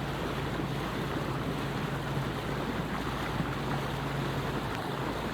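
Boat under way at steady speed: the engine running with a constant low hum beneath a steady rush of water and wind.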